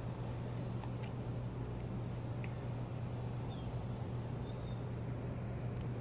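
Small birds chirping, short quick notes sliding up or down in pitch about once a second, over a steady low hum.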